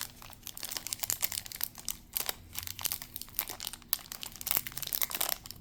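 Wrapper of a sports card pack crinkling and tearing as it is worked open by hand, a dense run of irregular crackles.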